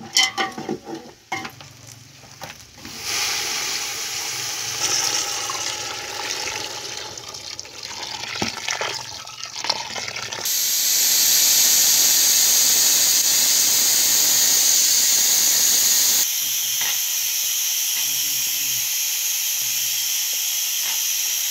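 A ladle knocking and scraping in a steel cooking pot of stew over a wood fire, with the food sizzling. About ten seconds in, water poured from a kettle into the hot pot sets off a loud, steady hiss. About sixteen seconds in the hiss drops to a quieter, steady level.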